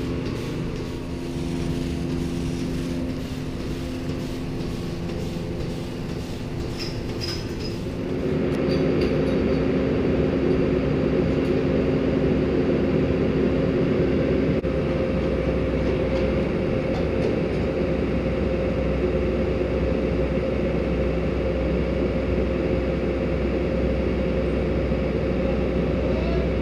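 A steady machine hum with a few held tones, then, about eight seconds in, a louder farm tractor engine running steadily.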